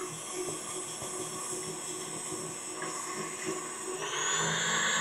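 KitchenAid stand mixer motor running with a steady whine as it beats eggs and sugar. About four seconds in, the speed is turned up, and the motor gets louder with a rising high whine that then holds steady.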